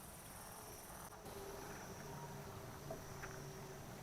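Crickets and other night insects chirping steadily and faintly, a high pulsing trill that carries on without a break.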